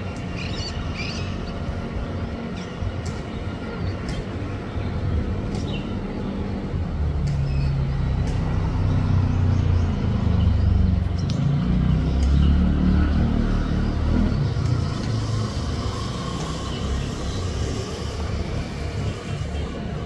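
Road traffic: a vehicle's low engine rumble that builds to its loudest about halfway through and then eases, with a few faint bird chirps early on.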